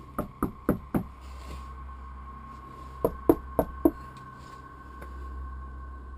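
Knocking on a door: a quick run of five knocks, then, after a pause of about two seconds, a second run of four, over a faint steady high hum.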